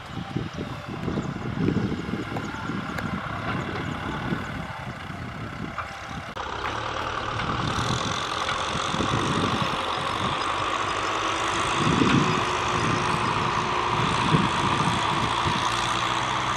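Diesel farm tractors working a field: first a distant tractor pulling a disc harrow, its engine under an uneven low rumble of wind on the microphone, then about six seconds in a closer, steady engine hum of a tractor pushing soil with a front blade.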